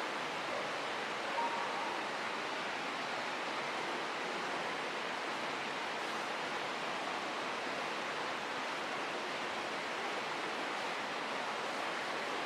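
Steady, even rushing noise with no distinct events. A brief faint sound rises above it about a second and a half in.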